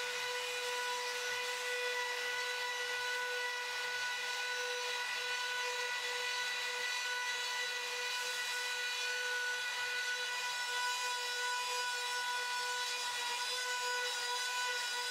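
CNC router's trim-router spindle cutting a 14 mm-deep carving into MDF with a small end mill: a steady high whine with overtones over the hiss of the cut.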